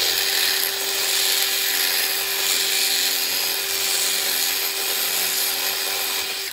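DeWalt cordless drill running at a steady speed, boring out a hole in a flat aluminium bracket to make it bigger, the motor holding one even pitch throughout.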